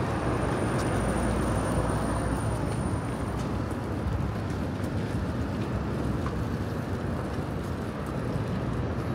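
Busy city street ambience: steady traffic rumble from passing vehicles under a general urban hubbub. A faint high-pitched whine runs under it and stops about three seconds in.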